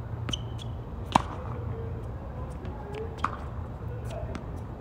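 Tennis balls struck by racket strings during a rally: one loud sharp hit about a second in and a fainter one about three seconds in, with lighter clicks in between. A steady low hum runs underneath.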